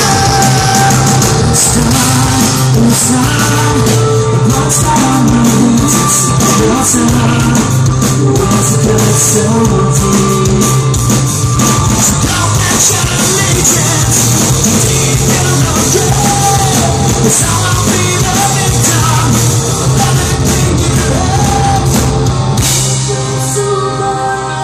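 Live rock band playing loud: electric guitar, bass and drums with a sung lead vocal, heard through the venue's PA from within the crowd. Near the end the top end thins out and the music eases off slightly.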